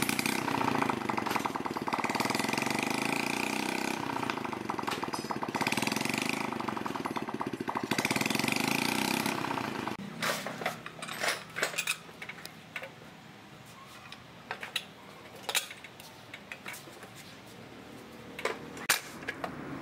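Honda Chaly's small single-cylinder four-stroke engine running on the stand with the rear wheel off. About ten seconds in it gives way to scattered metallic clinks and knocks as a fat tire is fitted onto the rear hub by hand.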